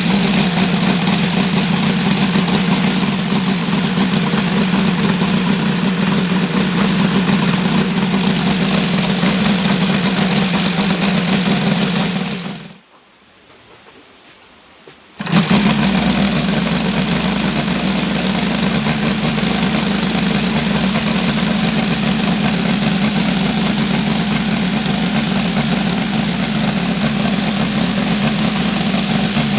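OS FR5-300 five-cylinder four-stroke radial model engine running steadily at a constant speed. The sound drops away about twelve seconds in and comes back abruptly about two and a half seconds later, the engine running on at the same steady pitch.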